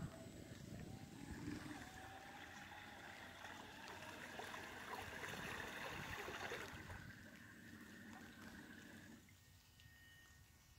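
Fiberglass RC boat's small motor whining faintly out on the water over a light splashing hiss. The pitch climbs a little at first, and the whine cuts off about nine seconds in as the boat coasts toward shore.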